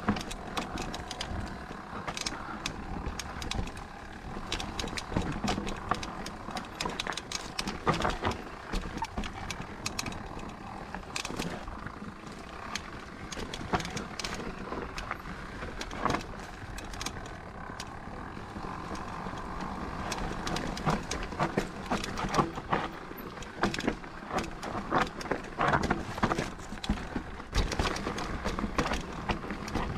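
Mountain bike riding down a rough singletrack: a steady rushing noise of tyres and wind with frequent sharp knocks and rattles as the bike goes over rocks and roots.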